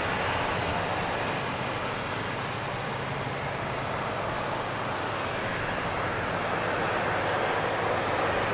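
Jet engines of a taxiing Airbus A320-214, its CFM56 turbofans at low taxi power: a steady rushing noise with a faint low hum beneath.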